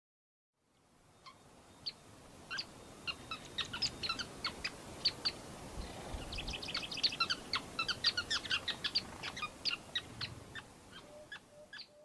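A colony of sociable weavers chattering: many short, sharp chirps in quick succession, starting about a second in, thickest in the middle, and thinning out near the end.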